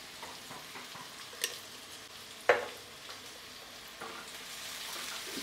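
Sliced onions sizzling steadily in hot mustard oil in a nonstick wok, with a slotted spatula stirring them from about four seconds in. There is a sharp click near the start and a louder short knock a little later.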